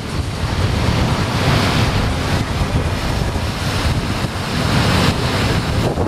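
Heavy storm surf breaking and surging against sea cliffs, with strong wind buffeting the microphone. The surf swells about one and a half seconds in and again around five seconds in.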